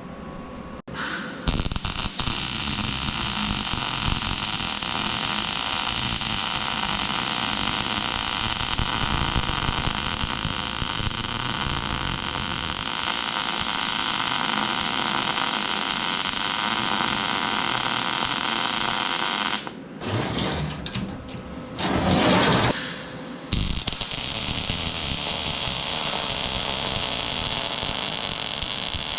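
Electric arc welding with a Vulcan OmniPro 220 welder: a steady crackling hiss that starts suddenly about a second in, breaks off for a few seconds about two-thirds through, and then picks up again.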